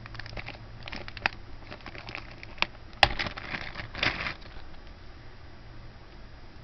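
Jewelry being handled at close range: small clicks of stone-chip beads and brief crinkles of a plastic bag, with one sharp click about three seconds in and a longer rustle just after four seconds.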